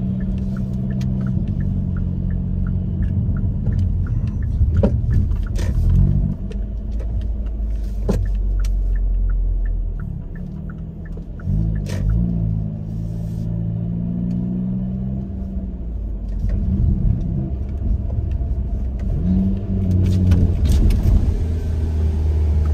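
Hyundai Kona N's 2.0-litre turbocharged four-cylinder engine and exhaust heard from inside the cabin while driving, the low engine note climbing and dropping several times with the throttle. A few sharp cracks stand out over it.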